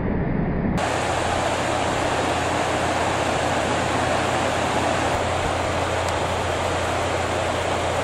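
Steady rushing background noise with a low hum; about a second in it abruptly becomes brighter and fuller.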